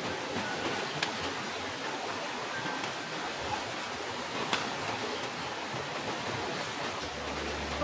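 Steady rushing outdoor ambience, like running water, with two brief sharp snaps about one second and four and a half seconds in as branches and undergrowth are handled.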